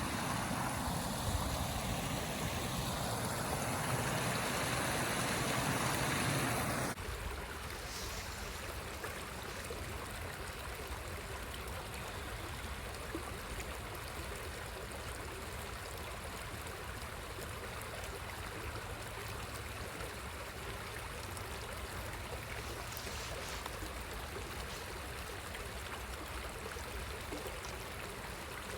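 Steady rush of flowing river water. For the first seven seconds a louder rushing noise with a slowly sweeping tone lies over it, then cuts off suddenly.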